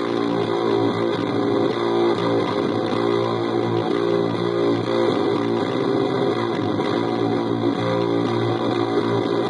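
Electric guitar played through a breadboard prototype Dropout Fuzz pedal in its boosted mode, giving a thick, fuzz-distorted tone. The notes and chords ring on without gaps, changing every second or so.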